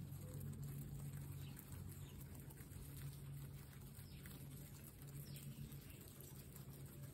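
Guinea pigs munching fresh grass: faint soft chewing and rustling of grass blades, over a steady low hum.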